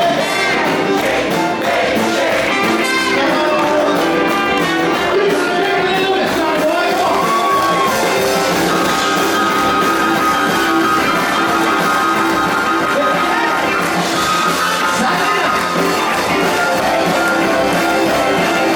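Live band playing 1950s-style rock and roll with a singer, loud and continuous.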